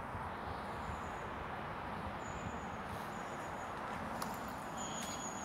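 Steady outdoor background rushing, with thin high bird chirps heard three times and a few faint clicks in the second half.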